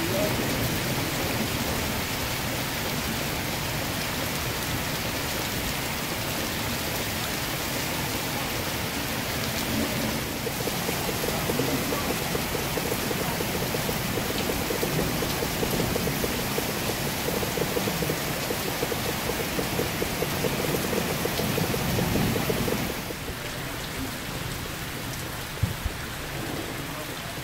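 Heavy downpour, a cloudburst, hammering onto flooded paving with a dense, steady hiss and splashing. It eases somewhat near the end, where a couple of sharp taps are heard.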